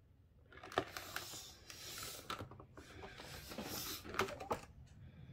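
Cutting head of a 12-inch paper trimmer drawn along its rail, slicing through a stack of four sheets of card: a scratchy, rasping cut lasting about four seconds, with sharp clicks about a second in and twice near the end.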